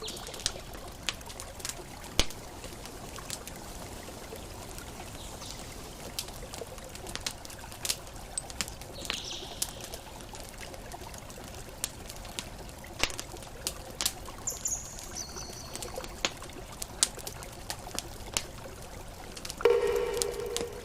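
Campfire crackling, with sharp pops every second or so over a steady wash of water like ocean waves. A few short bird calls come through near the middle and near the end.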